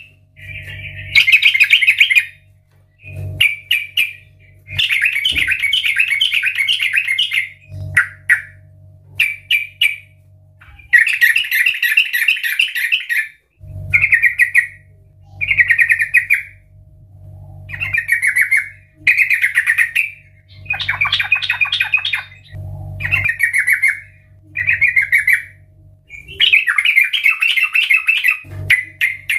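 Yellow-vented bulbul singing loud, bubbly warbling phrases over and over, each a second or two long with short pauses between.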